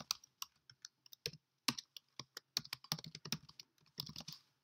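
Typing on a computer keyboard: irregular runs of faint key clicks with short pauses between them.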